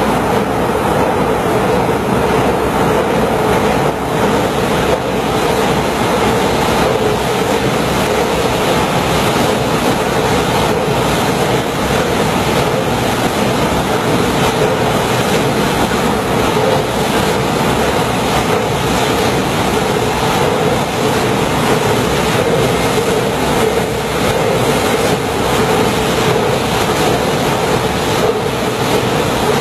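Wärtsilä RT-Flex two-stroke slow-speed marine diesel main engine running, a loud, steady engine-room din with a strong hum in the middle range.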